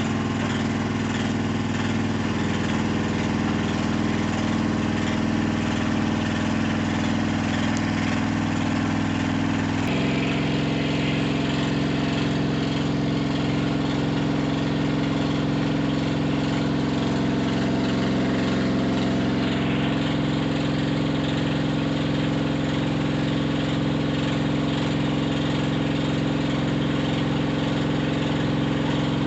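Washing machine on its spin cycle, running with an abnormally loud, steady mechanical drone. Its tone changes abruptly about ten seconds in.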